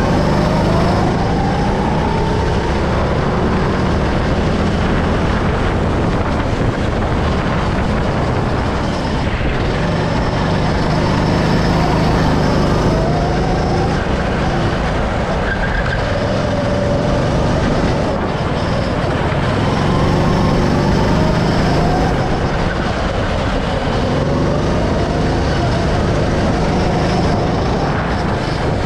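Go-kart engine heard from the driver's seat, running hard and steady, its pitch climbing several times as the kart accelerates down the straights and falling back between.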